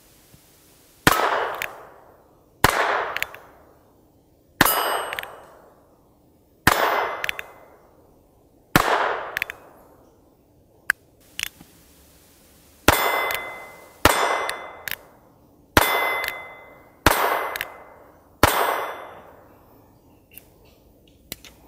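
North American Arms .22 LR single-action mini revolver fired ten times in two strings of five, each shot followed by a long ringing tail. On several shots a steel plate target rings when hit. There are a few faint clicks in the pauses.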